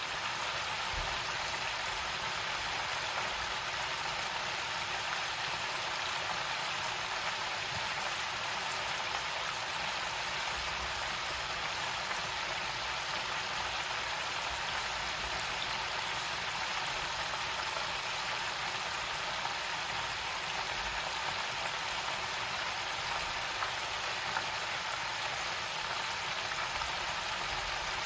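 Chicken frying in hot oil in an electric deep fryer basket: a steady, even sizzling and bubbling of oil at a constant level.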